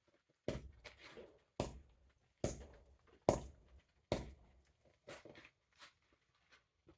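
Hammer blows on the metal of an ice auger's drill bit, knocking off a stuck piece that has been cut through: five hard strikes at an even pace of a little under one a second, each ringing briefly, then a few lighter knocks.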